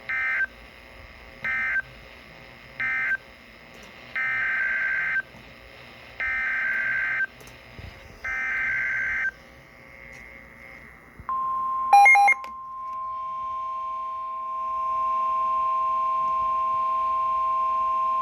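NOAA Weather Radio Emergency Alert System tones. First come three short screeching data bursts, the end-of-message code closing one tornado warning. Then come three longer bursts, the SAME header of the next warning. From about 11 seconds in, the steady 1050 Hz weather radio warning alarm tone sounds, with a brief crackle of beeps just after it starts.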